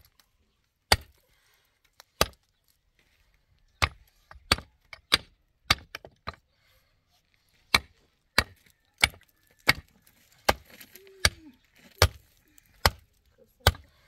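Repeated sharp blows, struck by hand at roughly one every two-thirds of a second with two short pauses: chopping or hammering, most likely on wood.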